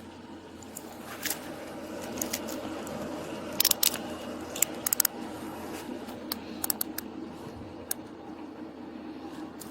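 Handcuffs being put on and ratcheted closed: scattered sharp metallic clicks, a few in quick runs, over steady background noise.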